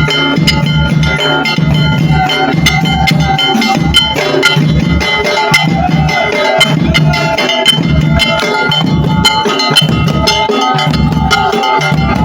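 Music with a steady low drum beat, sharp percussion clicks and sustained melodic tones.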